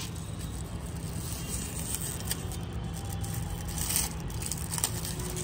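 Steady low background rumble, with a few faint clicks and crinkles as a plastic-wrapped bundle of firework rockets is handled.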